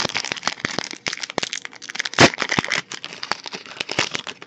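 Foil wrapper of a Magic: The Gathering booster pack being torn open and crinkled by hand: a dense run of sharp crackles with one louder tear about two seconds in.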